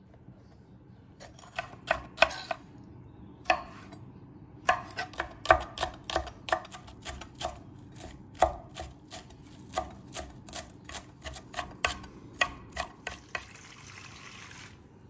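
Chef's knife chopping on an end-grain wooden cutting board: sharp knocks, scattered at first, then a fairly even run of about three a second. Near the end, a brief hissing pour of liquid into a stainless steel bowl.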